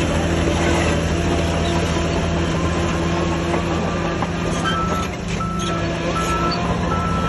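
Heavy diesel earthmoving machine's engine running steadily, with a reversing alarm beeping at an even pace starting about four and a half seconds in.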